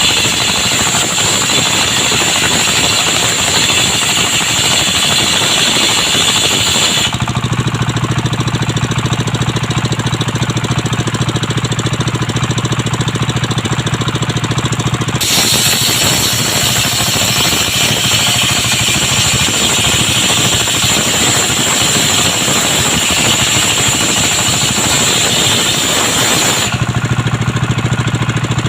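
Engine-driven circular sawmill cutting young coconut wood. A high-pitched sawing noise sits over the engine for the first seven seconds and again from about 15 to 27 seconds in. Between the cuts the engine and blade run on their own with a steady low hum.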